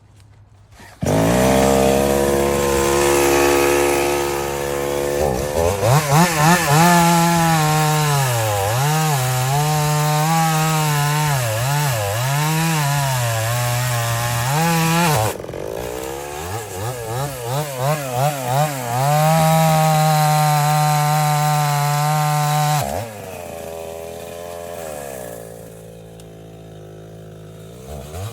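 Husqvarna chainsaw revving up about a second in and cutting wood, its engine pitch sagging and wavering under load during the cuts, with quick throttle blips between them. It settles to a lower idle for the last few seconds, then revs again at the end.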